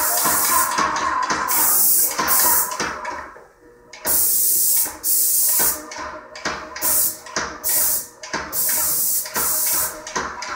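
Airless paint sprayer gun triggered on and off in about ten short bursts of hissing spray, each under a second long, with a pause of about a second near the middle.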